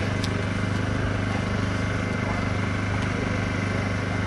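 A steady low mechanical hum, even and unchanging, with faint voices in the background.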